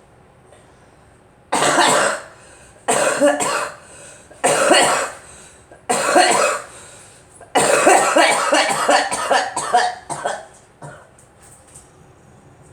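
A girl coughing in repeated fits: four separate coughing bursts about a second and a half apart, then a longer run of rapid coughs past the middle that trails off into a few fainter ones.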